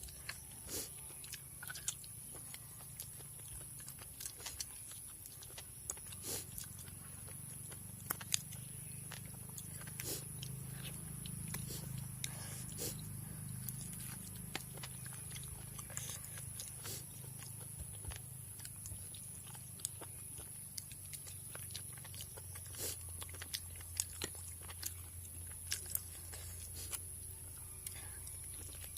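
Close-up chewing and mouth sounds of a person eating curry with rice, with many small irregular clicks and smacks over a low steady hum.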